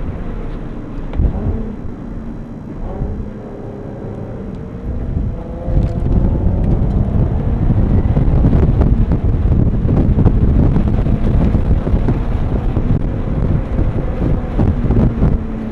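A 2004 Volkswagen R32's naturally aspirated 3.2-litre VR6 engine running under way, heard from inside the cabin with wind and road noise. Its pitch rises and falls as the car drives through the corners, and it grows louder from about six seconds in.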